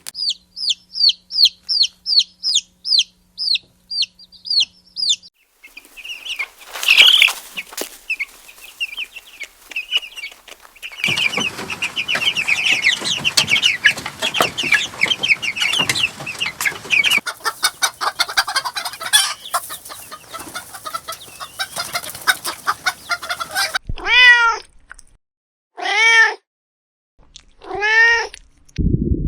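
Chicks peeping in a fast run of short falling peeps, then many chicks cheeping together over a scratchy rustling. Near the end a kitten meows three times.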